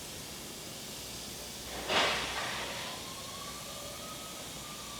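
Compressed air hissing steadily from loose hose fittings on a pressurised tank. About two seconds in there is a short, louder rush of air, and a faint whine rises and falls after it. The rotary screw compressor does not start, because tank pressure is above its 90 psi cut-in.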